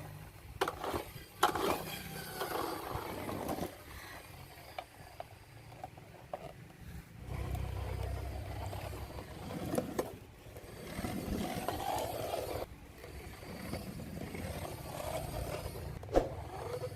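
Plastic toy jeep being handled: scattered clicks and knocks with scraping, the sharpest knock about a second and a half in.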